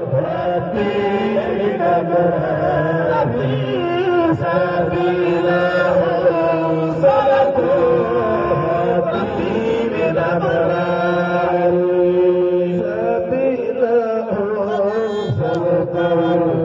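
Men's voices chanting a melodic devotional chant with long held notes, amplified through handheld microphones.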